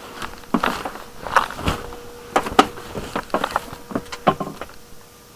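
Irregular rustling and knocking as the camera and a hand brush against cables and bubble-wrapped battery packing in a cramped space, about fifteen short knocks and scrapes, with a faint steady hum that comes and goes underneath.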